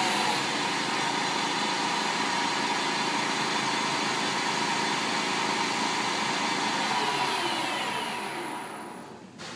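Fryer EL-18 lathe spindle running in high range: a steady machine whir with a constant whine through it. About eight seconds in it winds down, the pitch falling as it slows, and a click comes just before it dies away.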